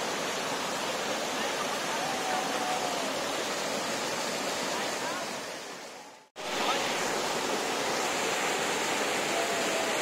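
Steady rush of a waterfall and river cascade, with faint voices in the distance. The sound fades away about five to six seconds in, drops out for a moment, then comes straight back.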